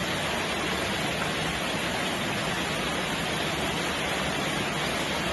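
Steady rain falling, an even hiss of noise that does not change in level.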